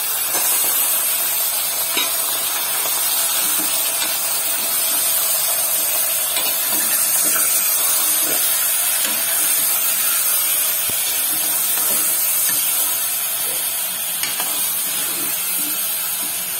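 Raw chicken pieces frying in hot oil with onions in an aluminium pressure cooker: a steady sizzling hiss, with occasional light scrapes and taps of a steel ladle stirring the pieces.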